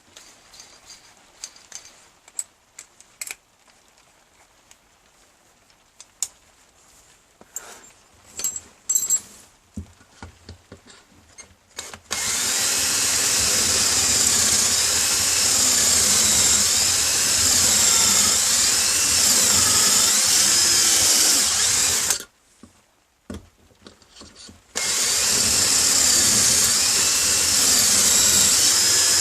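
A drill boring pocket holes into wood through a pocket hole jig's guide: about ten seconds of continuous drilling, a short stop, then drilling again near the end. Before the drilling there are scattered clicks and knocks of the jig and wood being handled.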